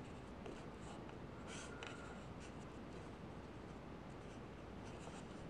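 Faint scratchy rustling of 550 paracord being handled and worked into a knot by hand, a few short rubs and scrapes over a steady low hiss, the longest about one and a half seconds in.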